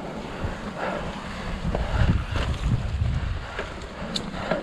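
Mountain bike descending a dirt singletrack: wind rushing over the camera microphone, with the tyres rolling over loose stones and dry leaves and the bike rattling over bumps. A brief high squeak near the end.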